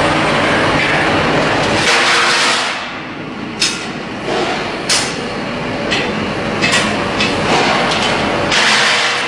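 Steady industrial din of galvanizing-plant machinery, with a few sharp metal clanks in the middle. A rushing noise swells up briefly twice, about two seconds in and near the end.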